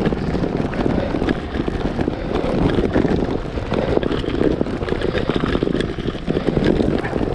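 Road bike ridden fast over cobblestones, with the handlebar-mounted camera shaking along: a loud, continuous rattling and drumming of tyres and frame on the stones.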